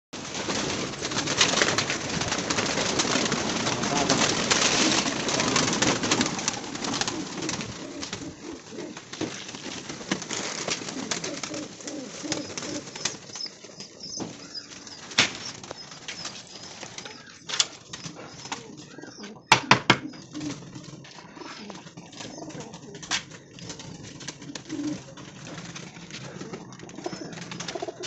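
Pigeons in a wire-mesh loft, many wings flapping at once for the first several seconds, then pigeons cooing. A few sharp clacks stand out over the cooing, the loudest a quick double about two-thirds of the way in.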